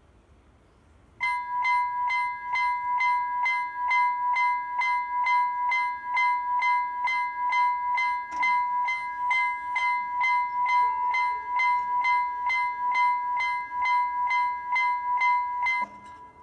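Level-crossing warning bell ringing in a steady, even series of about two strikes a second. It starts about a second in and stops abruptly near the end, once the barriers are down.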